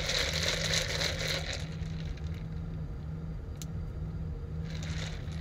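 Steady low hum inside a car's cabin, with crackling and rustling for the first second and a half and a single click about three and a half seconds in.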